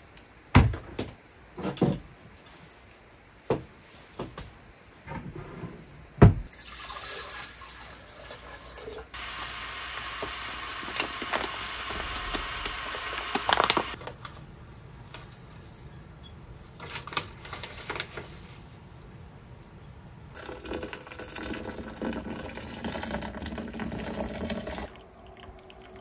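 Water running from a tap into a sink in two stretches, the second lower in pitch like a container filling. A few sharp knocks and clatters of kitchen things come before it.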